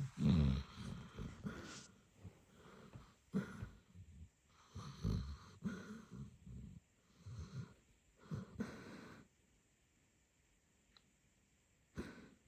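A sleeping basset hound snoring in irregular bursts of breath for about nine seconds, then quiet apart from one brief sharp noise near the end.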